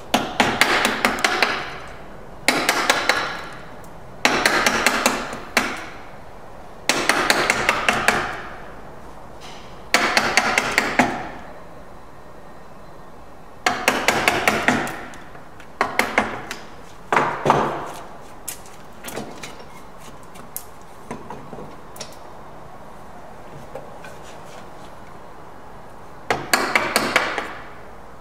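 Mallet driving a chisel into softwood, chopping the waste out of a bridle joint between saw kerfs. The blows come in short runs of quick strikes, each run about a second long with pauses between, and a few lighter taps part-way through.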